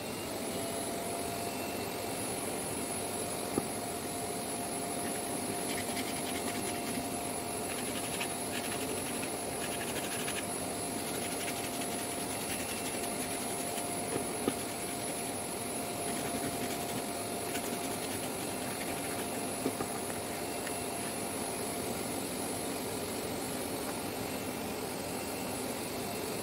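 Vacuum cleaner running steadily with a constant whine, drawing air down through the holes of a homemade downdraft sanding table. A few light knocks come as a sanding block is handled on the table top.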